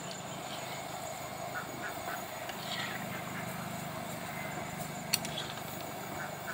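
Samosas deep-frying in a large wok of hot oil, a steady sizzle and bubbling as they are stirred with a metal spatula. The spatula gives one sharp clink against the wok about five seconds in.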